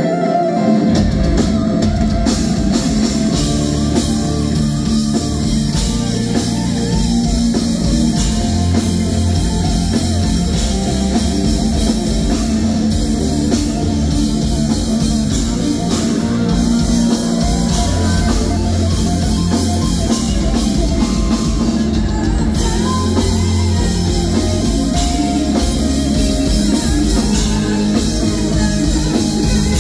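A live heavy rock band: an electric guitar plays lead over a drum kit and bass, with the full band coming in about a second in.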